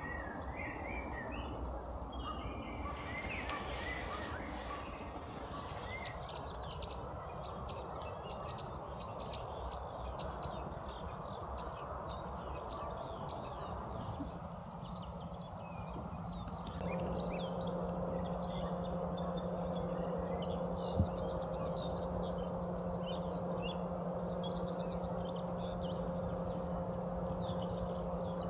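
Many small birds chirping and calling over a steady outdoor background. Just past the halfway point, a steady low hum starts underneath and runs on. There is a single sharp click a few seconds after that.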